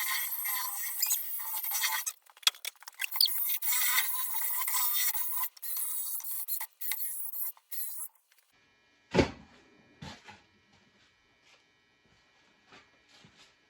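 Orbital sander running on a cast-iron table saw top: a hissing scrub with a steady whine that cuts in and out sharply, stopping about eight seconds in. Then a single loud knock and a few fainter knocks.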